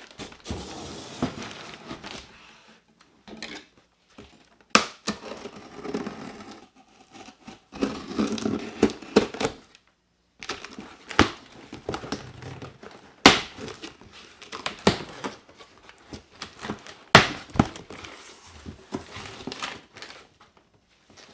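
A large cardboard shipping box being handled and opened: packing tape torn off in strips and cardboard flaps rustling and scraping in irregular bouts, with several sharp knocks of the box against the table.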